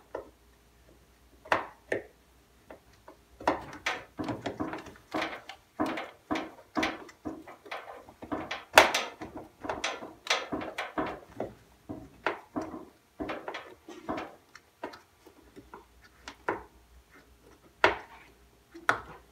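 Irregular clicks, taps and knocks of a screwdriver and plastic parts as a plastic part is fitted and screwed into place inside a washing machine cabinet.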